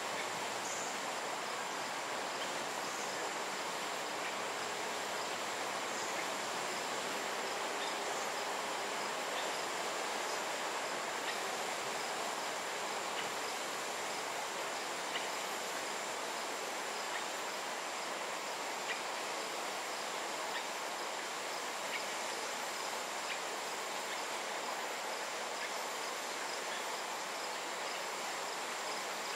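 Steady outdoor forest ambience: an even hiss with a thin, continuous high-pitched insect drone, and a few faint ticks scattered through.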